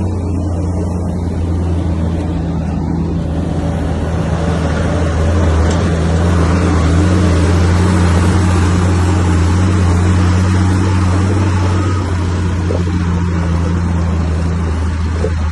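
Bulldozer's diesel engine running steadily as a low drone with working noise over it, growing a little louder about five seconds in and easing slightly near the end.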